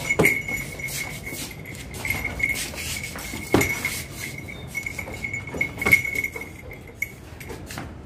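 Male Barbari goat's hooves knocking and shuffling on a concrete floor, with three sharper knocks (near the start, about three and a half seconds in, and about six seconds in) and light clinking from its collar, over a steady thin high whine that stops near the end.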